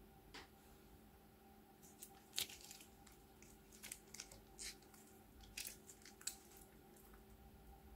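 Faint, scattered crinkles and clicks of a clear plastic piping bag being squeezed as small seed beads pour out of it onto slime.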